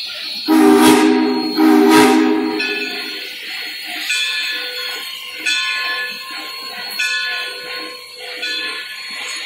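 Steam locomotive No. 1702, a USATC S160 2-8-0, sounds two blasts of its steam whistle, each about a second long, a chord of several tones. Then its bell rings at roughly one-and-a-half-second intervals.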